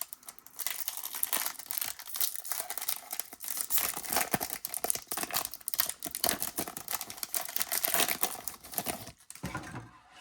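Trading-card pack wrapper crinkling as it is handled and torn open, in a dense run of crackles that stops near the end.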